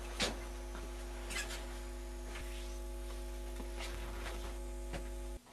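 Steady electrical hum in the recording, a low drone with a set of higher tones above it, under a few faint rustles and taps. It cuts off abruptly just before the end.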